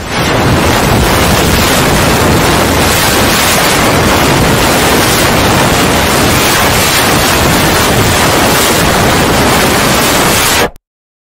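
Loud, harsh static-like noise spread evenly from deep lows to high hiss, with no tone or rhythm; it starts suddenly and cuts off abruptly about half a second before the end.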